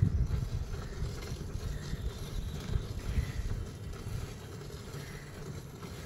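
Water buffalo being milked by hand into a steel bucket part full of milk: streams of milk squirting into the bucket, under an uneven low rumble of wind on the microphone that eases in the second half.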